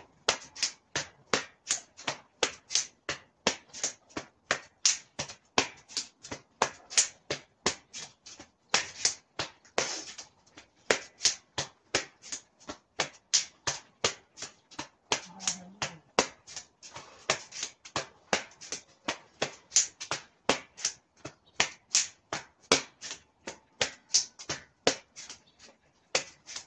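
Open hands slapping against the body in a steady rhythm, about two sharp slaps a second, as the arms swing loosely around the twisting torso.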